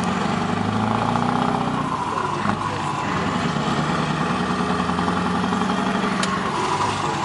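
Scania 164 480's V8 diesel pulling at full throttle, heard from inside the cab. The revs climb, break off about two seconds in, climb again, and drop near the end.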